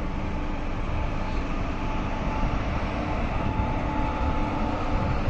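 Steady running rumble of a passenger train heard from on board, its wheels rolling over the rails at speed, with a faint steady hum above it.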